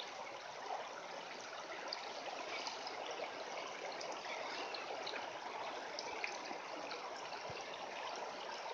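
Shallow mountain creek flowing over gravel: a steady rushing and trickling of water.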